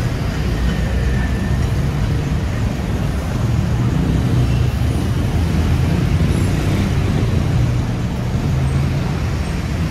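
City road traffic: vehicle engines running in a steady low rumble with tyre and road noise.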